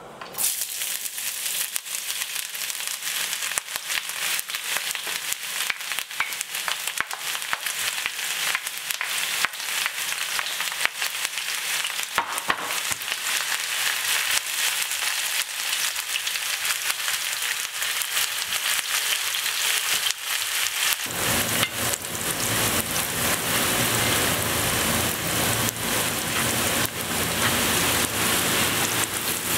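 Hot oil sizzling and crackling in a pan as food fries, a dense spatter of pops. A low rumble joins about two-thirds of the way through and keeps on.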